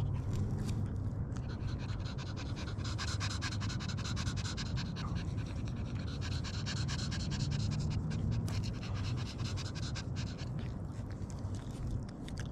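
A dog panting over a steady low rumble.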